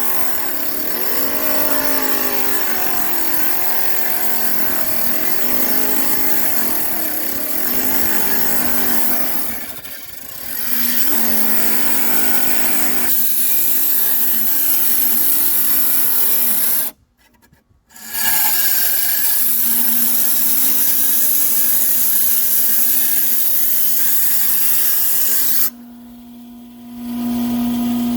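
Tile saw cutting through an agate, the diamond blade grinding on the stone. Over the first several seconds the saw's pitch sags and recovers again and again as the blade bites, then runs steadier later. The sound drops out briefly about ten seconds in and again near the end, and cuts out almost completely for about a second a little past halfway.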